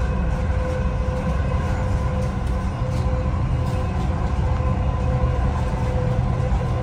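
Dubai Metro Red Line train running along elevated track, heard from inside the carriage: a steady low rumble with a faint steady hum and occasional light ticks.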